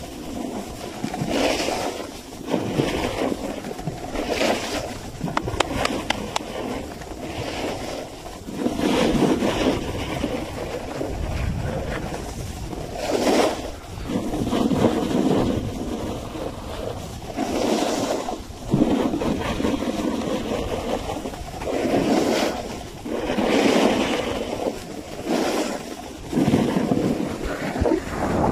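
Snowboard sliding and carving over snow, the scrape swelling and fading every second or two as it turns, with wind rushing over the microphone.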